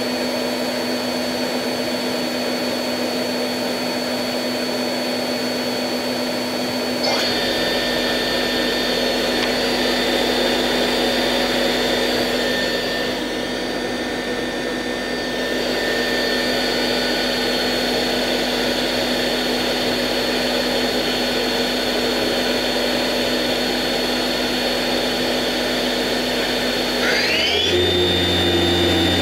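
Daewoo DMV-500 CNC vertical machining center's spindle running, a steady motor whine. Its pitch shifts about seven seconds in. Near the end it winds up with a rising whine to a new, higher steady speed.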